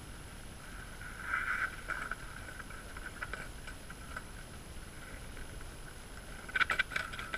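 Faint steady hiss of open air with scattered light clicks, then a short run of clattering knocks near the end from a unicycle falling and skidding on ice.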